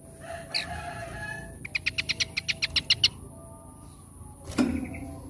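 A small songbird singing: a short call, then a fast, even run of about a dozen clear repeated notes, roughly eight a second. A sharp click follows near the end, over a faint steady high tone.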